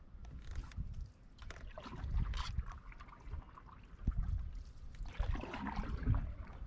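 Paddling a Coleman canoe: the paddle dips and pulls through the water every second or two, with water trickling off the blade and lapping against the hull, and low knocks between strokes.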